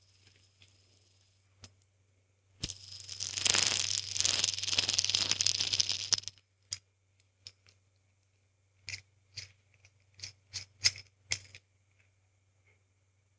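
Metal hand spinner handled close to the microphone: about three and a half seconds of dense metallic rattling, then a string of separate sharp clicks.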